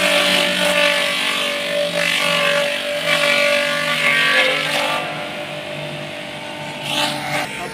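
Homemade motor-driven forage chopper running steadily while cassava leaves and stalks are fed in and shredded. The shredding noise is heavy for about the first five seconds and then eases to the motor's hum, with one short louder burst near the end.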